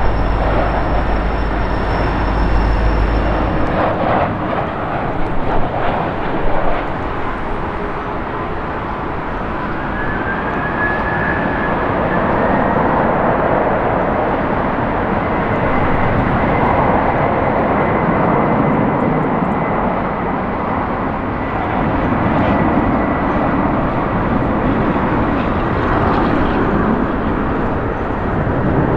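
Jet airliner engines: a low rumble from a Boeing 737 on approach for the first few seconds. It gives way to steady jet engine noise with a faint whine from a three-engine jet freighter taxiing.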